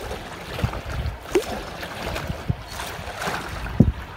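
Canoe being paddled on a river: water swishing and splashing around the paddles and the aluminum Grumman canoe's hull, with a few sharp knocks, the loudest near the end.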